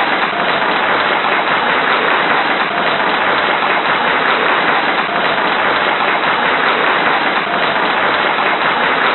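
Large crowd applauding steadily: a dense, even patter of many hands clapping at once.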